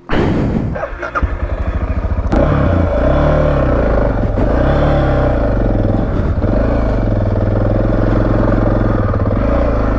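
Suzuki DR650SE single-cylinder four-stroke motorcycle engine running under way, its revs rising and falling twice in the first half, then holding steady.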